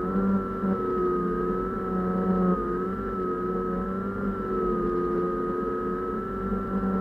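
A small UAV's motor and propeller running steadily in flight, heard from on board the aircraft: a constant whine made of several pitches that waver slightly, over a low wind rumble.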